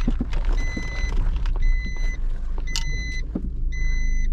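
A Suzuki car's in-cabin warning beeper sounds a steady beep, each about half a second long, about once a second, while the car is being parked. Under it the engine runs with a low steady hum.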